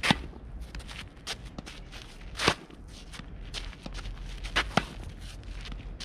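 Tennis balls struck by a racket: sharp pops a couple of seconds apart, the loudest just after the start and about two and a half seconds in, two close together near the end, with fainter ticks of balls and shoe scuffs on the dirt court between.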